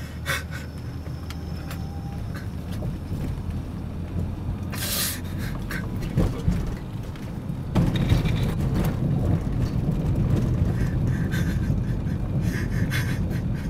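Road noise inside a moving car: a steady low rumble that grows a little louder near the middle, with a few short hissing noises over it.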